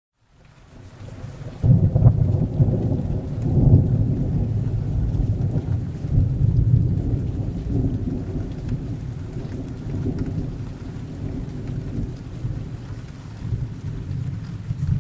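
Thunder rumbling during rain. Out of a moment of silence, a deep rumble swells in over the first two seconds, is loudest from about two to four seconds in, then slowly dies away under a light hiss of rain.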